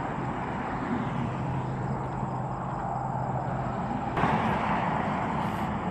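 Steady outdoor ambience of road traffic noise with a low engine hum, swelling a little about four seconds in.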